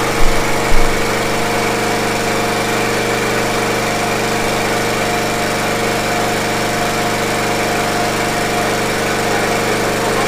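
A small engine running steadily at idle with an even hum, while a stream of water pours from a split pipe into a water-filled drum. Two short knocks sound right at the start.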